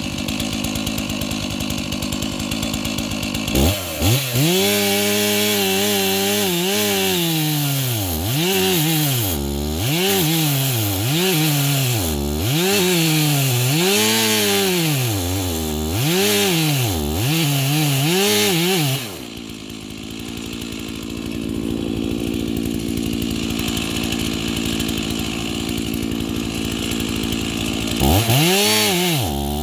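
Stock two-stroke chainsaw running: idling at first, then held at high revs with the pitch rising and dipping about once a second. About two-thirds of the way through it drops back to idle, and it revs up again near the end.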